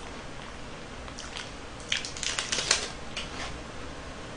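Light crinkling and crackly clicks as a mini Kit Kat's wrapper is torn open and the wafer bar bitten, with most of the crackling clustered about two seconds in.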